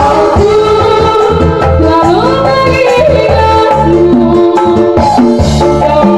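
Loud live band music: a woman singing into a microphone with sliding, ornamented melody lines over a band with hand drums and a pulsing bass.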